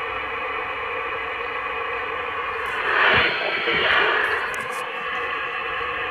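CB radio receiver on upper sideband giving out steady band hiss and static, with a louder swell of garbled, wavering signal about three seconds in.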